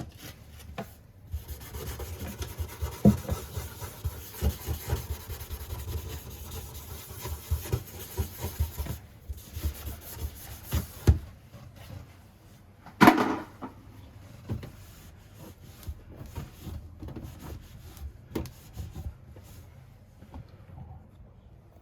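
Hands and tools working on a washbasin faucet installation: rubbing and scraping with many light knocks, one louder brief scrape about 13 seconds in, then quieter, sparser knocks toward the end.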